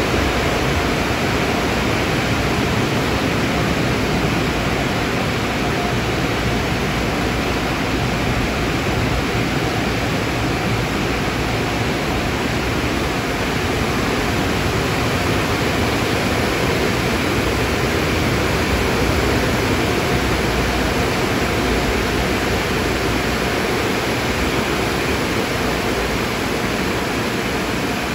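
Steady, even rushing noise from car wash equipment, with no distinct knocks, voices or passing sounds.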